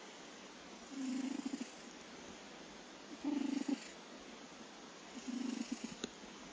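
Domestic cat snoring: three short snores about two seconds apart, one with each breath.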